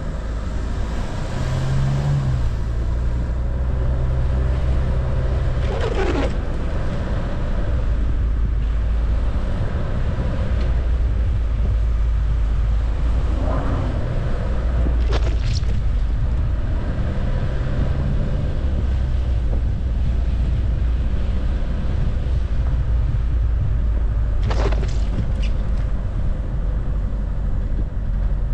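Car driving over an unplowed, snow-covered street: a steady low rumble of the vehicle and its tyres, with a few brief sweeping sounds.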